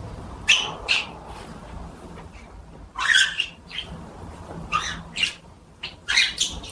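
Pet green parrot squawking in short separate calls: two about half a second in, a longer one around three seconds, then a few more toward the end.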